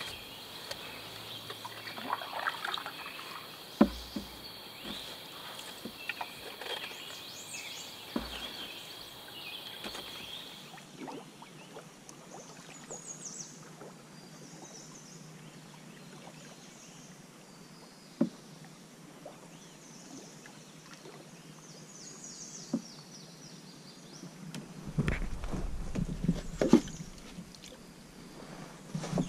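Canoe paddling on a river: paddle strokes with water pouring and dripping, and occasional sharp knocks. A steady high drone runs through the first third, and faint high chirps follow.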